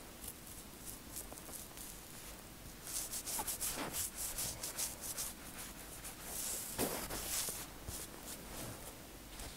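Fingertips rubbing and massaging an oiled scalp through tight cornrow braids, heard as a close, scratchy crackle of hair. It grows louder and denser from about three seconds in and eases near the end.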